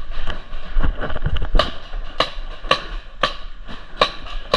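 Paintball marker firing a string of single shots, about two a second, each a sharp pop starting about a second and a half in, after some low rumbling on the microphone.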